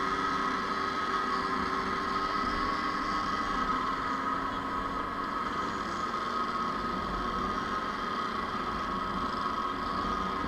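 Two-stroke motorcycle engines running, a steady mechanical hum with a few held tones.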